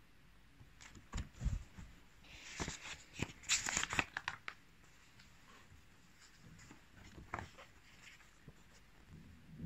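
Pages of a paperback picture book being handled and turned: soft paper rustling and a run of small clicks for a few seconds, then a couple of faint taps later on.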